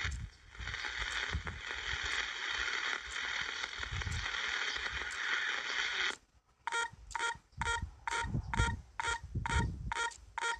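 Disaster-prevention radio receiver giving out static hiss from a weak, distant signal, with a few faint steady tones in it, which cuts off abruptly about six seconds in. After a brief silence comes a quick run of short electronic beeps, about three a second.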